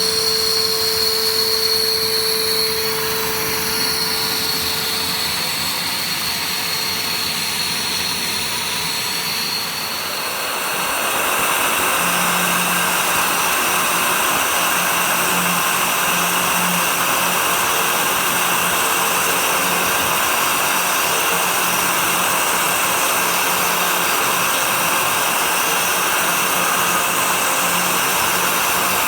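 CNC 3018 Plus desktop router milling with its dust extraction vacuum running: a steady machine drone with a high whine, which changes about ten seconds in to a louder, fuller rushing noise that then holds steady.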